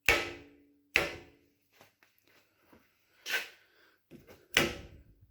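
Sharp knocks of an EMCO 10 lathe bed being tapped into position on a metal planer, four strikes spaced about one to two seconds apart, the first two ringing briefly.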